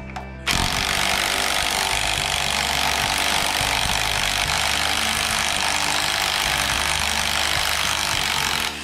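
Handheld power tool run continuously against the crankshaft pulley bolt of a diesel engine. It gives a steady, high-pitched rushing noise that starts abruptly about half a second in and stops abruptly just before the end.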